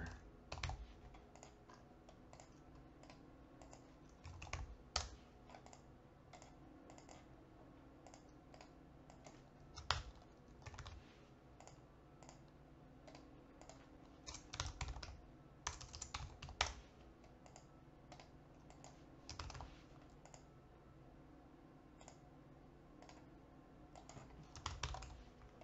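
Computer keyboard keystrokes and mouse clicks, faint and scattered, coming in short clusters with pauses between, over a low steady hum.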